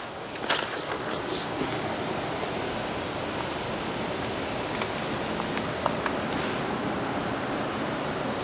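Steady hiss of background noise, with a few short crackles of self-adhesive flashing membrane being handled and pressed onto the window opening in the first second and a half.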